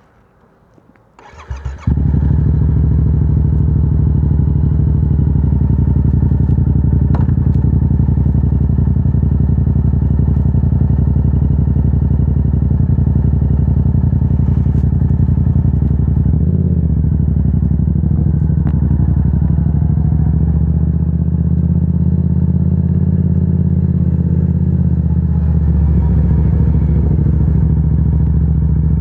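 Yamaha R7's parallel-twin engine, fitted with a Yoshimura AT2 full exhaust, cranked on the starter and firing about two seconds in, then idling steadily.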